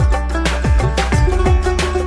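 Background music with a steady beat, plucked string notes over a bass line and kick drum.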